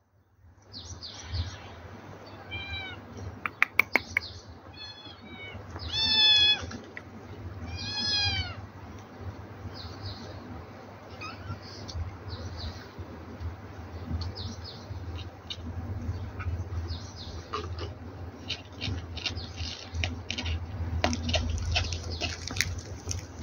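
Kittens meowing: several high-pitched, arching mews in the first nine seconds. A few sharp clicks come around four seconds in as the loudest sound, and later a run of short crackling ticks, over a low steady hum.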